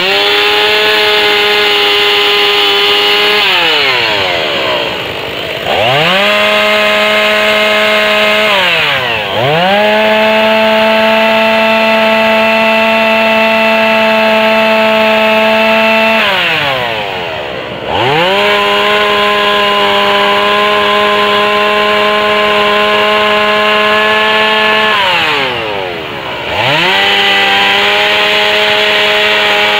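Two-stroke chainsaw run at full throttle, carving into a log. It drops back to idle four times and revs straight back up each time.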